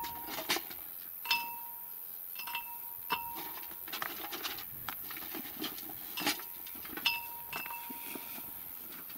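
Pieces of brick and stone being handled and knocking against metal (the steel post or a metal bucket), giving several irregular clinks that each ring briefly, over scraping and rustling as the hole around the post is packed.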